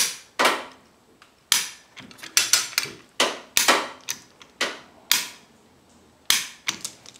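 Hand-operated chain come-along being ratcheted tighter: about a dozen sharp metallic clacks of the lever, ratchet and chain at uneven intervals, with a short pause near the end before two more.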